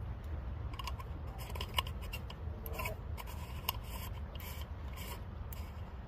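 Wood fire crackling in a titanium Firebox stove: irregular snaps and pops from about a second in until near the end, over a steady low rumble.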